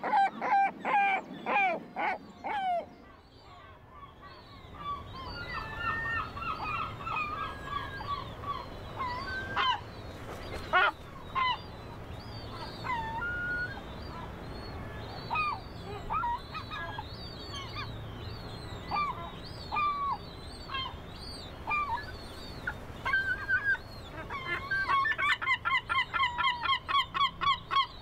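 Gulls calling: a run of loud, repeated, falling calls at the start, then scattered calls and yelps from many birds, and near the end another fast run of repeated calls, about four a second, typical of a gull's long call.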